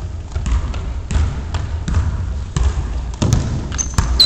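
A basketball bouncing on a hardwood gym floor, irregular knocks about every half second, with players' running footsteps under it. A short high squeak comes near the end.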